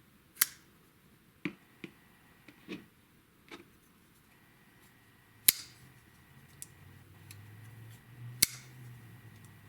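Flipper folding knives with ball-bearing pivots being flipped open and shut: a string of sharp metallic clicks and snaps as blades swing out and lock up, with the two loudest snaps about five and a half and eight and a half seconds in.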